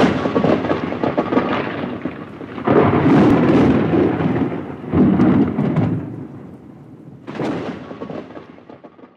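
Thunder sound effect: rolling thunder in four swells, at the start and again about three, five and seven seconds in, dying away near the end.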